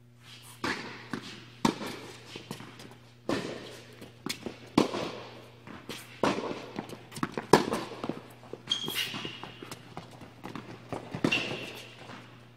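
Tennis rally on an indoor court: sharp pops of racket strings hitting the ball and the ball bouncing, about every second or so, echoing in the hall, with quicker footsteps between the shots. A steady low hum runs underneath.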